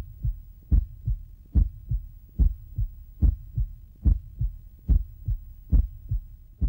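Heartbeat sound effect: steady double 'lub-dub' thumps, about 72 beats a minute.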